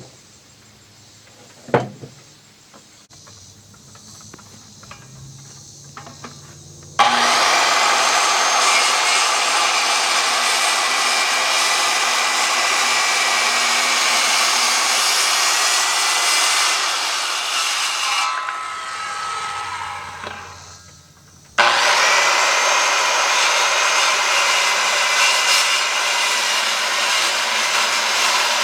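Power saw cutting treated lumber in two long runs, the first about eleven seconds long and fading out, the second starting abruptly near the end. Before them there is a quiet stretch with a single knock about two seconds in.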